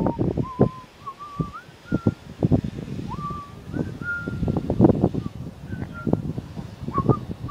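A person whistling a tune in short held notes with small upward slides, over irregular knocks and thumps.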